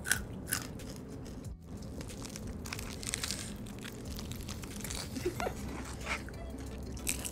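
Biting and chewing of crispy fried chicken, with a few sharp crunches in the first second and scattered softer crunches after.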